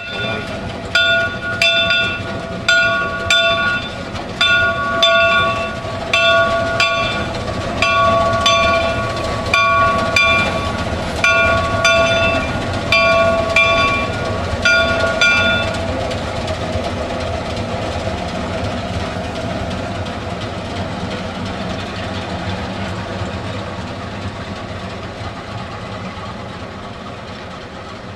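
Locomotive bell on Cass Scenic Railroad Shay No. 2, a three-truck geared steam locomotive, ringing steadily about once every 0.8 seconds over the engine's steady working noise as it passes. The bell stops about halfway through, leaving the steam locomotive and train running, slowly fading as they move away.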